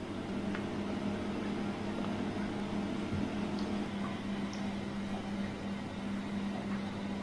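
A small electric motor running with a steady hum and an airy hiss, already spun up to speed.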